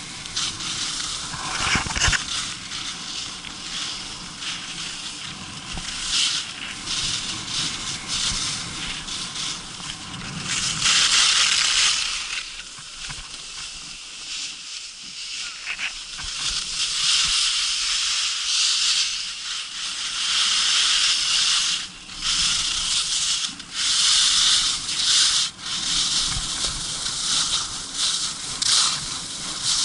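Skis scraping and hissing over groomed piste snow, the hiss swelling loud and dropping back every few seconds as the skis carve from turn to turn.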